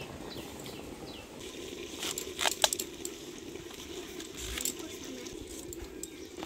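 A few sharp clicks and light metallic clinks as pumpkin is cut on a boti, over a steady low hum, with short bird chirps in the first second.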